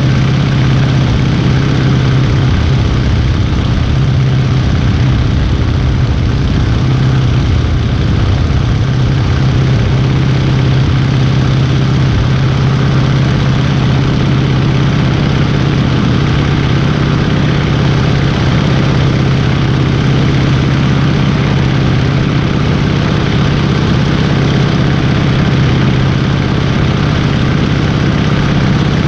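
Stearman biplane's radial engine and propeller running steadily in flight, a constant low drone, with air rushing past the wing-mounted microphone.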